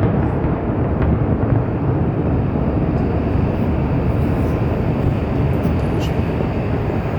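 Steady low rumble from a fireworks display, with a few faint pops.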